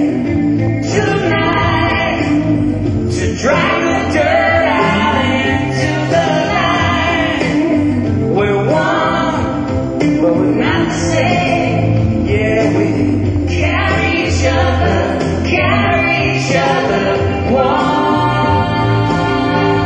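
Live music: a singing voice over a backing band, with a steady low bass underneath.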